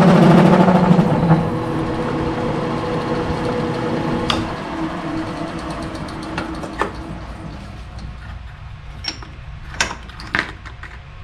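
Small metal lathe running while turning an aluminium plug, louder for about the first second, then its drone fades gradually over several seconds. A few sharp clicks and knocks come later on, and several near the end as the part is handled at the chuck.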